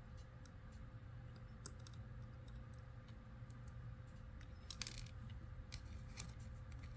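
Small plastic Lego pieces clicking and tapping as they are handled and fitted together: faint scattered clicks, with a short cluster about five seconds in.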